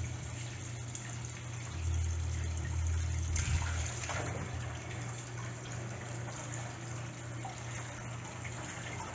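Kitchen tap running a steady stream into a stainless steel sink part-filled with water. A little past three seconds in, the water splashes louder as a hand rinses a peeled potato under the stream.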